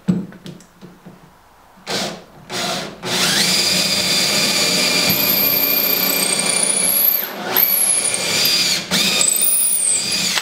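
Cordless drill boring a hole down through a wooden canoe seat frame and inwale: two short bursts of drilling, then a long steady run from about three seconds in that dips briefly twice near the end.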